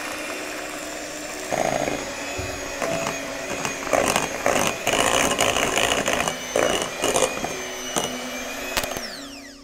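Handheld electric mixer beating thick chocolate cake batter in a glass bowl, the motor running steadily with irregular knocks of the beaters against the glass. Near the end the motor is switched off and winds down, falling in pitch.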